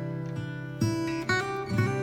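Background music: acoustic guitar playing plucked notes, a new note or chord struck about every half second.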